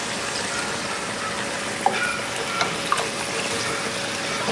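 Water poured from a plastic cup into a hot wok of browned pork pieces, with a steady splashing and hiss from the pan. A few light spatula clicks against the pan come about two to three seconds in as the pork is stirred.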